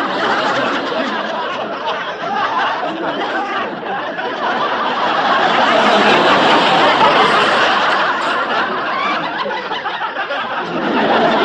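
A large crowd laughing together, many voices overlapping continuously, swelling to a peak midway and then easing off a little.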